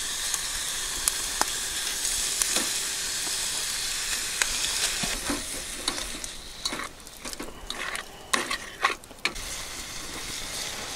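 Raw chicken pieces sizzling and frying in rendered chicken fat in a metal pot lid over a charcoal grill: a steady high hiss with scattered sharp clicks and pops, turning patchier and more crackly in the second half.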